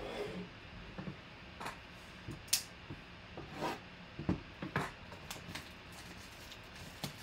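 Hands handling a shrink-wrapped cardboard trading-card hobby box and picking at the plastic wrap to open it: scattered taps, clicks and short crinkles.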